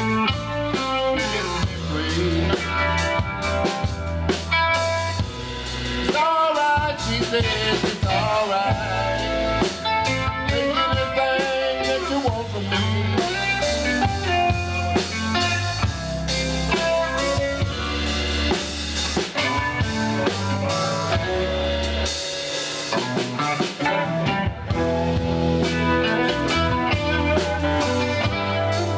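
Live band playing a slow blues-rock song: electric guitars with bent lead notes over electric bass and a drum kit.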